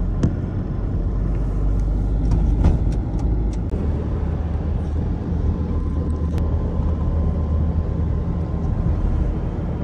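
Inside a moving Toyota car: a steady low rumble of engine and tyre road noise, with a few light clicks.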